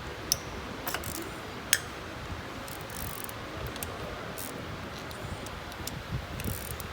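Scattered light clicks and ticks of hand tools and bolts on the engine's metal parts while the air charge manifold bolts are being taken out, over a steady background hiss. The sharpest click comes a little under two seconds in.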